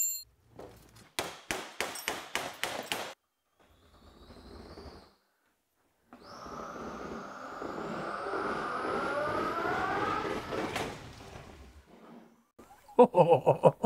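An electric go-kart's drive motors whine as the kart accelerates, rising steadily in pitch over a noisy rolling rumble, then cut off abruptly about eleven seconds in. Before that come a few seconds of clattering knocks, and near the end a burst of loud sharp knocks.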